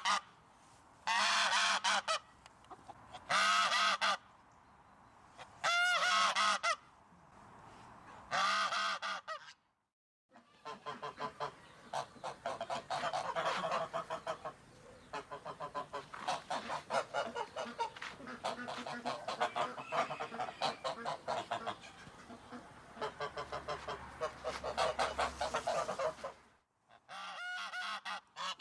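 Geese honking. First comes a single goose's loud honks about every two seconds. After a brief break, a long stretch follows of many geese calling over one another in quick, overlapping honks, and near the end there are single loud honks again.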